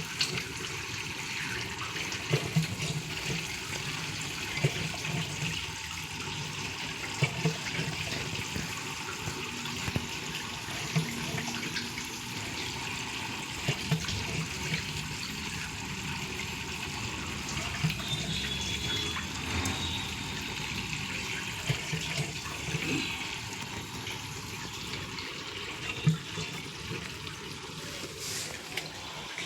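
Fully automatic washing machine running with water in the drum: a steady rush of water and splashing, with irregular low thumps every second or two.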